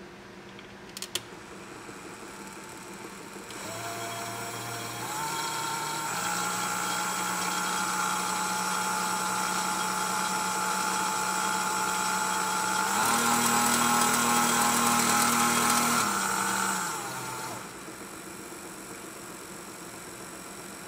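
A Fleischmann toy circular saw is spinning, driven by a belt from a small electric drill. It gives a steady motor-and-blade whine that steps up in speed twice in the first part and again past the middle, then winds down near the end. A couple of sharp clicks come about a second in.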